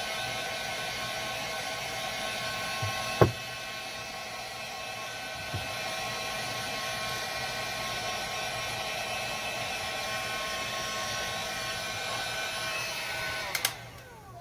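Heat gun running steadily, a blowing hiss with a motor whine, used to melt and smooth the inside walls of a paraffin wax lantern. There is a sharp knock about three seconds in, and the gun is switched off near the end with a couple of clicks.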